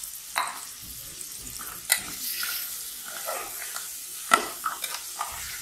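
Minced raw chicken sizzling in hot oil in an aluminium saucepan while a metal spoon stirs it, clinking and scraping against the pan. There are sharp knocks from the spoon about two seconds in and again about four seconds in.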